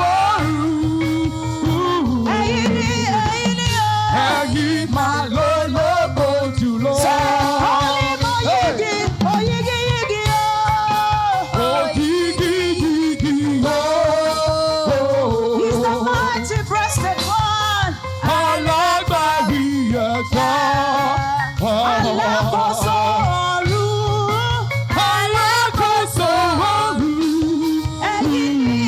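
Live church praise music: voices singing a Yoruba-style praise song over a band with a steady bass line and percussion.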